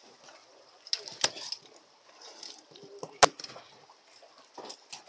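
Sharp knocks on a boat's deck as gear is handled: two loud ones about two seconds apart and a few fainter taps, over a steady hiss of wind and sea.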